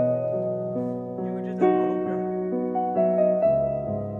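Background piano music: a slow melody of held notes that change about every half second.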